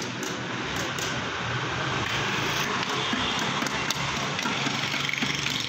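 Steady roadside traffic noise with a vehicle engine running.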